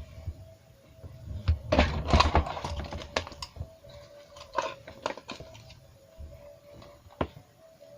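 Handling noise: a run of light clicks, taps and rustles, busiest about two seconds in, over a faint steady hum.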